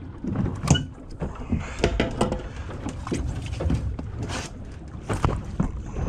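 Irregular knocks and clatter of pliers and a small shark being handled against a fibreglass boat deck, over a steady low rumble.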